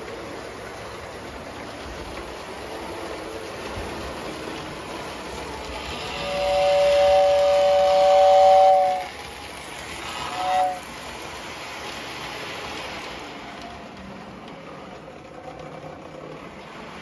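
O-scale model steam train running over the track with a steady rumbling hiss. Its steam whistle blows one long two-note blast about six seconds in, then a short toot about a second later.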